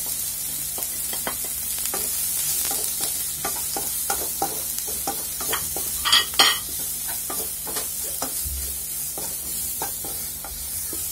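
Chopped cabbage, capsicum and onion sizzling in oil in a nonstick frying pan while a wooden spatula stirs and scrapes them, a steady high hiss with irregular taps of the spatula. Two sharper clacks come about six seconds in.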